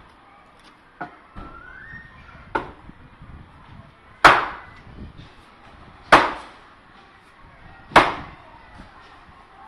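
Axe splitting wood by hand: two lighter knocks, then three hard chopping strikes about two seconds apart, each dying away quickly.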